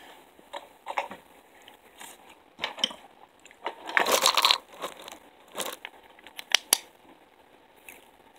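Irregular crinkly rustling and sharp clicks from something being handled. The loudest part is a half-second rustle about four seconds in, followed by two sharp clicks a little later.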